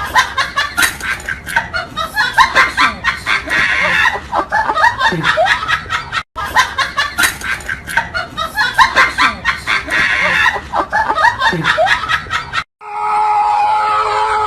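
Laughter sound effect, many voices laughing and snickering in quick bursts, played twice over as the same loop. It cuts off near the end and a steady held tone follows.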